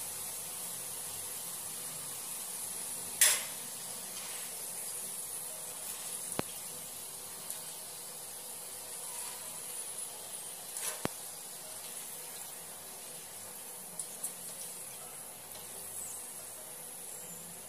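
Dried white peas deep-frying in hot oil in a pan, a steady high sizzle, with a few sharp clicks, the loudest about three seconds in.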